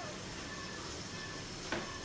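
Steady background hiss with one short, sharp click or knock near the end.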